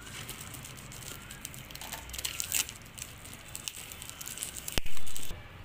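Packing tape being peeled and torn off a cardboard parcel: irregular crackling and crinkling tears, with a sharp pop near the end followed by a brief loud burst.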